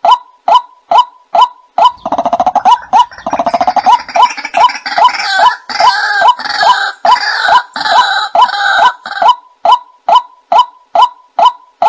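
White-breasted waterhen calls played as a bird-hunting lure: a short 'kwak' note repeated steadily about two to three times a second. From about two seconds in, a louder, rough, chattering and croaking chorus joins. It drops out near the end, leaving the steady kwak series.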